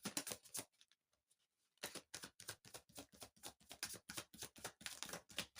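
A deck of cards being shuffled by hand: a rapid run of soft snaps and slides that breaks off for about a second, then goes on densely.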